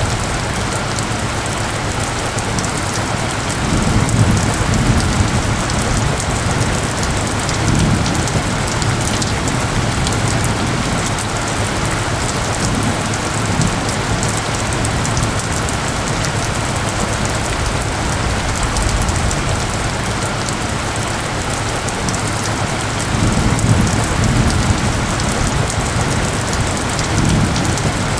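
Steady rain falling, an even hiss with no let-up. Low rumbles swell up a few times, about four seconds in, around eight and thirteen seconds, and twice near the end.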